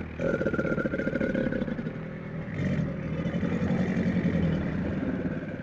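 A large wild animal's low, rough call, rumbling and pulsing, with a thin steady higher tone over it; it starts just after a brief gap and eases off near the end.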